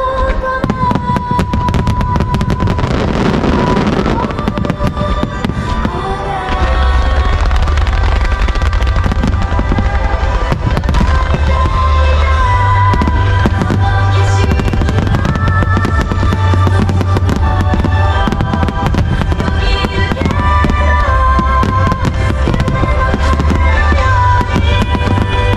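A dense fireworks finale barrage: a continuous mass of bangs and crackling from many shells, comets and ground-fired mines at once, with a song playing over it. About six seconds in, the low booming gets heavier and stays that way.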